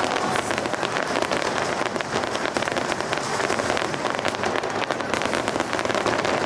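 Aerial fireworks crackling: a dense, steady mass of rapid small pops and crackles with no single big bang standing out.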